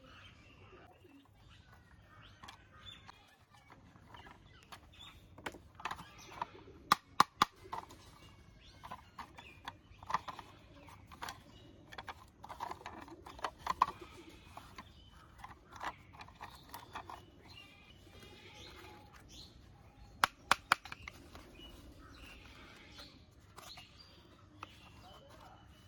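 Hard plastic toy car parts being handled, unscrewed and fitted together: scattered clicks and knocks, the sharpest clusters about seven seconds in and again around twenty seconds in. Birds chirp faintly in the background.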